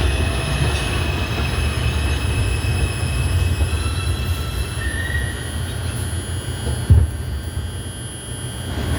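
R142 subway train running along the track: a steady low rumble of wheels on rail with thin, high wheel squeal that fades out about halfway. A single short thump about seven seconds in is the loudest moment.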